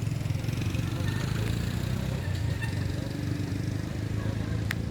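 A steady low motor-like rumble, with one sharp click near the end.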